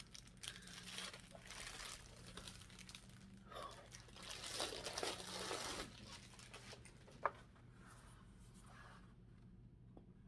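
Faint packaging crinkling and tearing in short bursts as an award is unwrapped, then a single sharp click.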